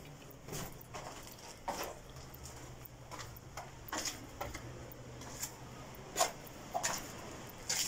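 Footsteps scuffing and crunching on gritty, sand-covered rock steps, irregular, roughly one or two a second.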